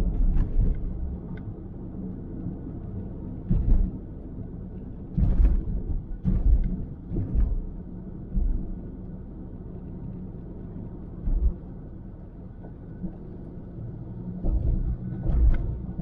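Steady low road rumble inside a moving car's cabin, with several short low thumps scattered through it.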